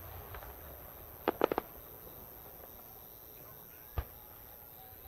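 Aerial firework shells bursting: a quick cluster of four sharp bangs about a second and a half in, and one more bang near the end, with faint crackling at the start.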